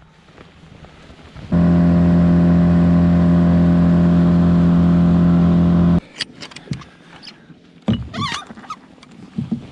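A boat's outboard motor running at a steady speed for about four and a half seconds, cutting in and out abruptly. Scattered clicks and knocks follow.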